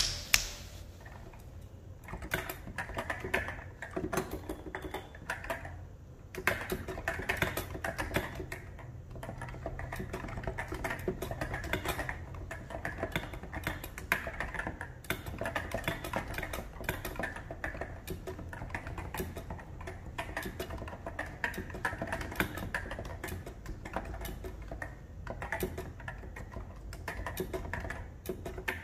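Typing on a Realforce R2 RGB keyboard with Topre electro-capacitive switches and SA-profile keycaps: a steady, dense stream of keystrokes, a little softer for the first six seconds or so.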